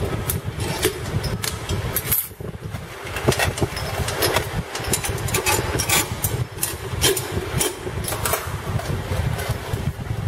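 Steady low mechanical rumble, with frequent irregular metal clicks and clinks of bolts, nuts and a spanner being handled against a stainless-steel machine frame.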